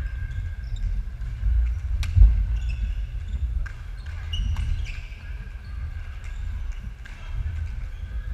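Badminton play on a wooden sports-hall floor: a few sharp clicks of rackets striking the shuttlecock, the clearest about two seconds in, and low thumping of footsteps, with a heavy thud just after that first click.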